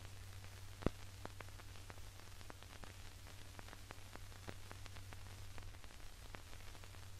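Old optical film soundtrack running with no programme sound. It gives a steady low hum and hiss, scattered clicks and pops from dust and wear, and one louder pop about a second in.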